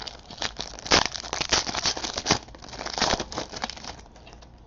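Panini Prizm basketball cards being flipped through by hand and slid against one another, a run of irregular papery scrapes and clicks.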